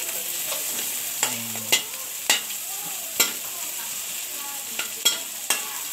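Shrimp frying in garlic butter in a pan, a steady sizzle, with a utensil stirring and knocking against the pan in several sharp clicks.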